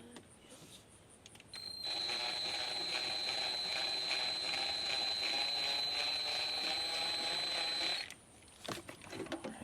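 Cordless drill/driver motor running steadily for about six seconds as it drives a speaker screw, with a constant high whine, then cutting off. A few light clicks follow.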